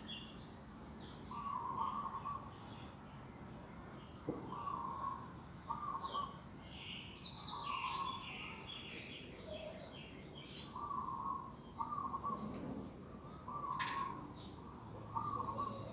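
Several birds calling. One repeats a short low call every second or two, while others chirp and twitter at a higher pitch; two short clicks stand out, about four seconds in and near the end.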